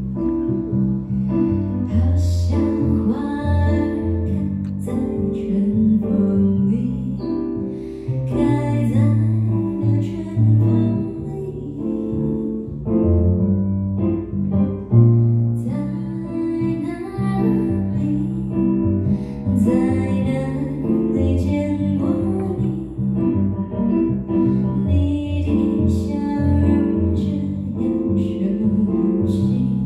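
Live music: a Nord Electro 6D stage keyboard playing piano chords and bass, with a woman singing into a microphone in some stretches.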